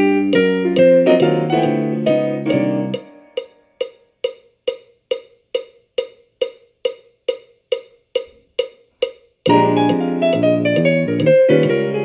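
Jazz piano from a play-along backing track, over a steady click on every beat. About three seconds in the piano drops out, leaving only the click at about two a second: the four-bar gap in which the drummer takes his turn trading fours. The piano comes back in about nine and a half seconds in.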